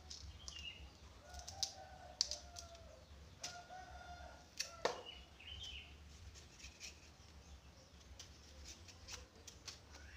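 Chickens clucking, with scattered light clicks from a knife cutting vegetables by hand and one sharper knock about five seconds in.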